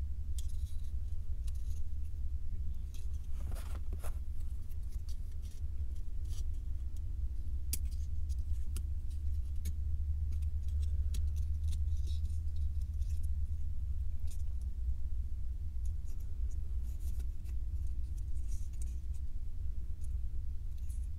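Pieces of a 3D furniture puzzle being handled and fitted together: scattered light clicks and taps, with a brief scrape about four seconds in. A steady low hum runs underneath.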